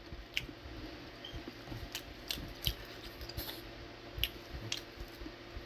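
Quiet eating noises: scattered small clicks and smacks as fried meat and rice are picked up by hand and chewed.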